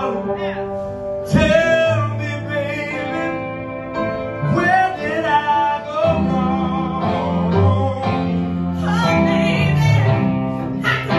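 Live soul vocal performance: a man singing with gliding, ornamented runs over keyboard accompaniment.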